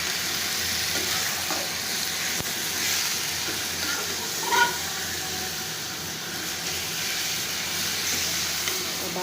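Minced meat with tomatoes and potatoes sizzling steadily in hot oil in a pan while being stirred, as the keema is sautéed to dry off its water. A brief metallic clink comes about halfway through.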